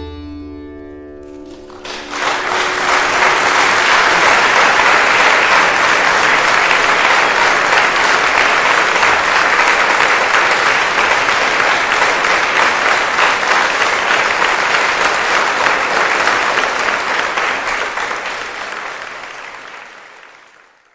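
Audience applause: a dense clapping that swells up about a second and a half in, holds steady, and fades away near the end, following the last ringing notes of a piece of music.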